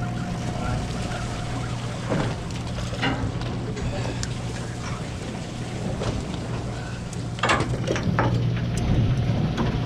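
Steady low drone of the party boat's engine under wind and water noise, with a few brief knocks or splashes, the loudest about seven and a half seconds in.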